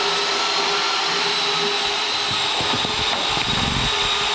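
An electric power tool's motor running steadily with a constant high whine, with a few low knocks around the middle.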